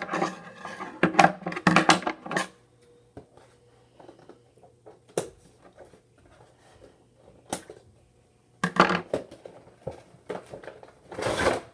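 Toy packaging being handled and opened: crackling, rustling bursts with a few sharp clicks between, busiest at the start and again near the end.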